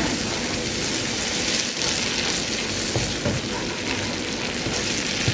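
Sauce sizzling steadily in a hot pan while it is gently stirred, with a few light knocks against the pan about three seconds in.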